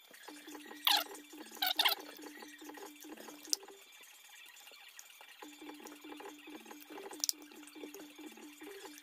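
Wet mouth sounds of a man working a mouthful of sunflower seeds, cracking the shells one at a time: rapid small wet clicks and ticks. Two short squeaks, falling in pitch, come about a second and two seconds in.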